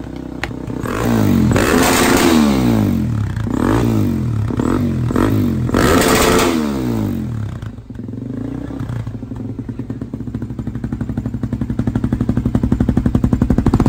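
Suzuki DRZ400SM's single-cylinder four-stroke engine, fitted with an FCR41 carburettor and a Yoshimura exhaust, revved in about five throttle blips that rise and fall, then settling to a steady idle from about eight seconds in.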